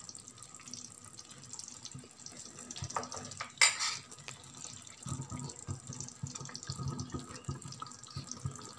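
Thick chicken gravy simmering faintly in a nonstick pan, with a low crackle of bubbling that picks up in the second half. A single sharp clink comes about three and a half seconds in.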